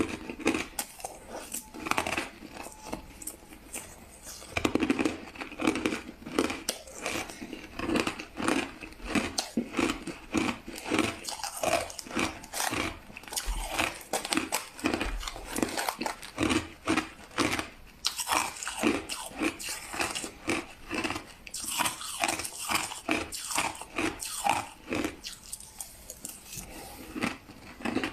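White crushed ice being bitten and chewed close to the microphone: a steady run of short, crisp crunches, about two to three a second.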